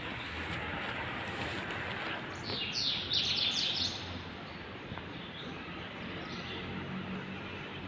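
A quick run of short, high bird chirps lasting about a second and a half, a few seconds in, over steady outdoor street noise.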